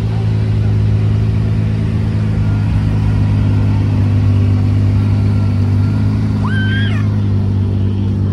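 Ferrari Testarossa's flat-12 engine running steadily at low revs as the car creeps past, with no revving.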